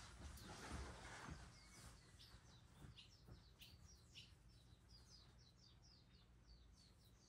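Faint chirping of a small songbird: a series of short, high, down-slurred notes starting about two seconds in and quickening into a rapid run near the end.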